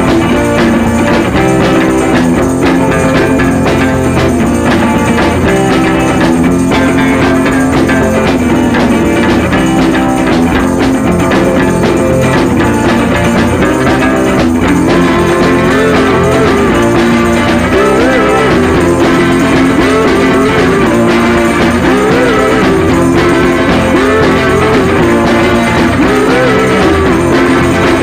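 Loud background music playing steadily, with a wavering melody line that comes in about halfway through.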